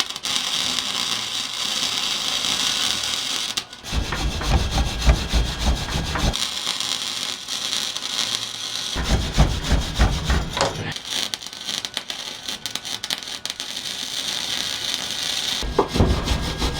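Electric welder's arc crackling and sizzling in runs as a crack in an exhaust mid pipe is welded shut. Deep rumbling bursts come in between the runs, a few seconds in, near the middle and near the end.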